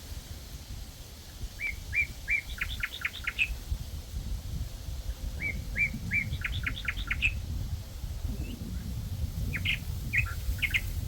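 A songbird singing the same short phrase twice, a few even notes followed by a quick run of falling notes, with a shorter burst near the end. Wind rumbles on the microphone underneath.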